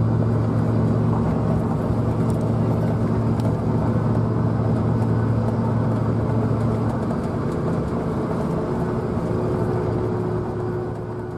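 Inside the cab of a Ford pickup with the 6.4 Power Stroke V8 turbodiesel, cruising at highway speed while towing a tractor on a trailer: a steady low engine drone over road and tyre noise. The low hum eases somewhat about two-thirds of the way through.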